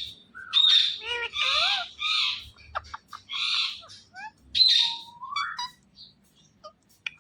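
Indian ringneck parakeet calling: a run of loud, harsh screeches mixed with short sweeping chirps and whistles, thinning out after about five seconds to a few soft chirps.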